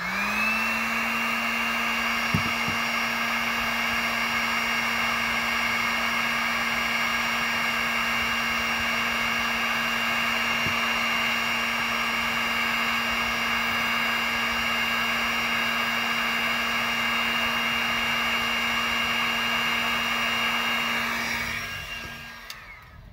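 Electric heat gun switched on, its fan spinning up quickly to a steady hum and whine with rushing air. It runs for about twenty seconds, then winds down near the end. It is heating a heat-shrink sleeve over a soldered wire splice.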